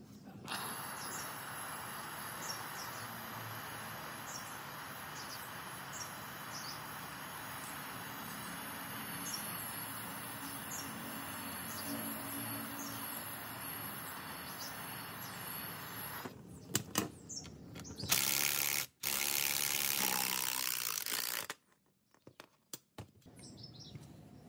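Steady rushing background noise with small birds chirping faintly over it. Past the middle it cuts to a few seconds of loud hissing, then to near quiet with a few clicks.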